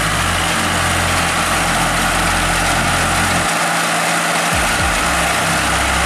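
Engine of a turf aerator machine running steadily as it works a stadium pitch.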